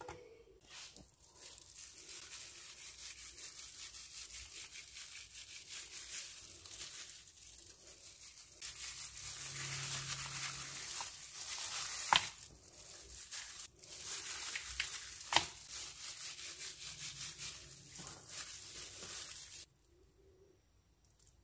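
Plastic-gloved hand rubbing spice mix into raw fish pieces on a plate: a steady crinkling, rubbing hiss with two sharp clicks, stopping shortly before the end.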